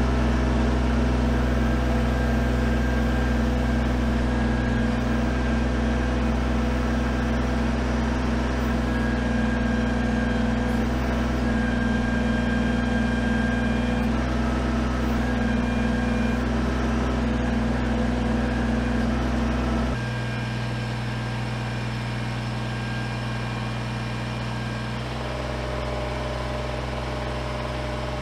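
Kubota BX23s compact tractor's three-cylinder diesel running steadily at about 2500 rpm while the front loader's hydraulics lift and tilt a pallet-fork load. The engine sound becomes quieter about two-thirds of the way through.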